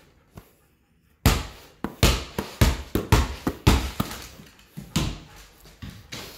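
A series of irregular thumps and knocks, about two a second, beginning about a second in after a brief near silence.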